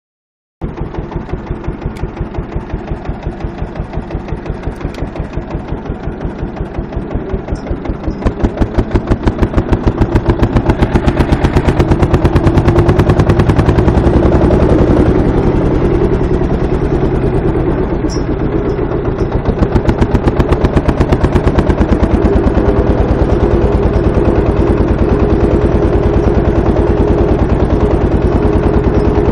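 Deutz F1M414 tractor's single-cylinder diesel engine running under way, each firing stroke heard as a separate thump. The beat quickens and grows louder about ten seconds in, then holds a fast, steady rhythm.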